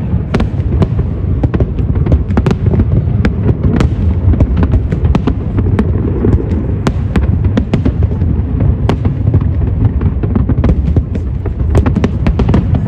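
A fireworks display going off: a continuous low rumble of bursts with many sharp cracks and bangs throughout.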